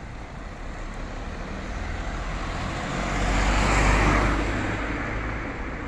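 A road vehicle passing by, its engine and tyre noise swelling to a peak about four seconds in and then fading.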